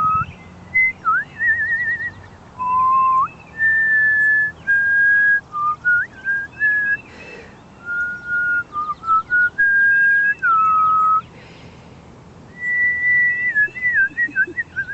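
A person whistling to call cardinals: clear single-pitched notes, mostly held for up to a second, sliding up or down between them, with a quick warble about a second and a half in.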